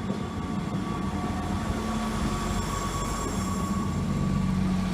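Class 158 diesel multiple unit running, a steady diesel drone from its underfloor engines with a faint high whine over it, slowly growing louder.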